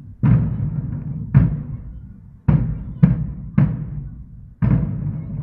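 Large ceremonial drums beaten in a slow, uneven marching rhythm, six deep strokes, each ringing on for most of a second.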